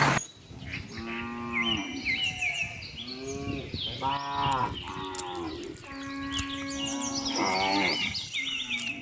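Cattle mooing, about five calls a second or so apart, with small birds chirping throughout.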